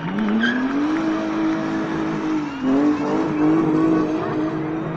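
Rally car engine revving hard as the car slides around a roundabout. The pitch climbs in the first second and holds high, dips briefly about two and a half seconds in, then climbs again.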